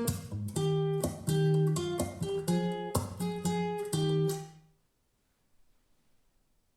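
Guitar music played back through Quadral Ascent 650 three-way bass-reflex floor-standing speakers: a run of plucked notes that fades out about four and a half seconds in, leaving near silence.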